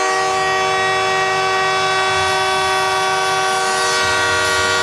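The Montreal Canadiens' arena goal horn blowing one long, steady blast with several pitches sounding together. It signals a home-team goal.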